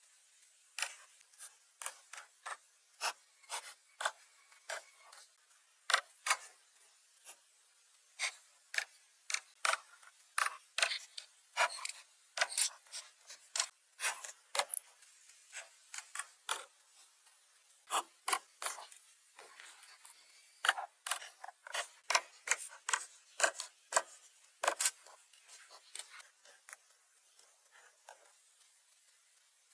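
Short scraping strokes, one to two a second in irregular runs with brief pauses.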